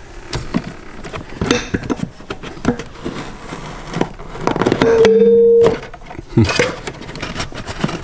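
Hands working in a car footwell: floor carpet rustling and scraping, with small clicks and knocks against the metal of the pedal box. About five seconds in comes a short steady high tone, lasting under a second, louder than the handling.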